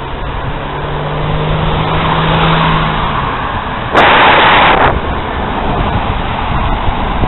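Wind and road rumble on a bicycle-mounted camera while riding, with a car overtaking: a steady hum and tyre noise swell over the first three seconds. About four seconds in, a sudden loud rush of noise starts with a click and cuts off just under a second later, the loudest thing here.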